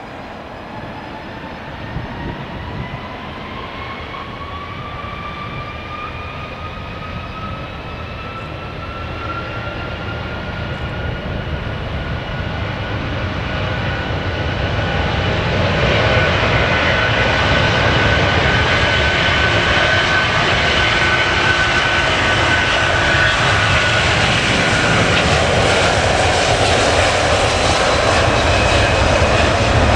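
Twin-engine Airbus A330 jet airliner spooling up for takeoff. A rising engine whine climbs in pitch and grows louder over about fifteen seconds, then the engine noise becomes louder and fuller as the aircraft accelerates on its takeoff roll.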